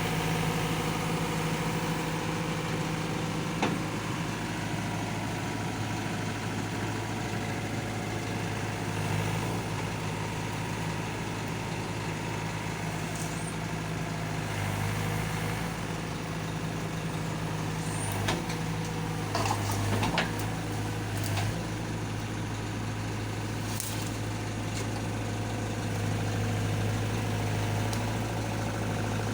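Heavy diesel engine running steadily at a constant speed, with a few short sharp knocks, mostly in the second half.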